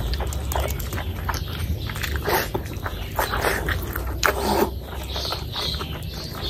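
Close-miked wet chewing and lip-smacking of a mouthful of oily curry and rice, an irregular run of sticky mouth clicks, with the squish of a bare hand mixing curry into rice.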